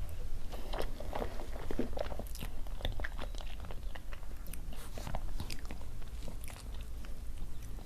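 Person chewing and biting food, a continuous run of short mouth clicks and soft crunches.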